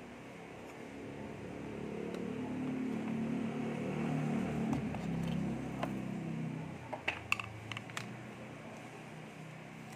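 A low hum swells over the first few seconds and fades out by about seven seconds. Then a quick cluster of sharp plastic clicks from the folding phone stand's hinged arm and holder being worked.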